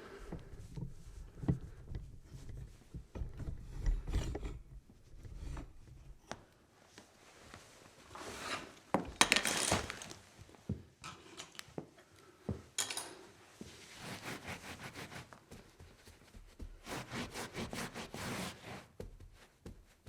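Cleaning up a spill: scraping and rubbing strokes mixed with knocks and handling thumps. The loudest is a swishing wipe about nine seconds in. Near the end comes a run of quick scrubbing strokes.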